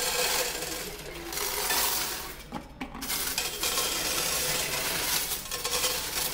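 Loose coins clattering as they are poured from a plastic tub into the metal tray of a coin-counting machine, then raked and pushed around the tray by hand.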